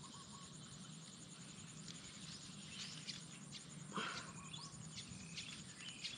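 Faint outdoor ambience with a few short bird chirps in the middle, and a brief rustle about four seconds in.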